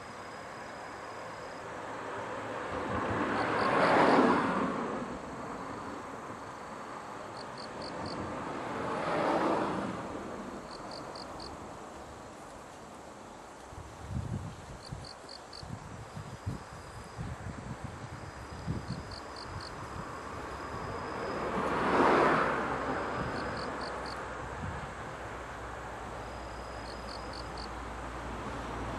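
Outdoor trackside ambience: road vehicles pass one at a time, each swelling up and fading away, while insects chirp in short groups of high ticks. Near the end a low rumble builds as an electric freight locomotive approaches.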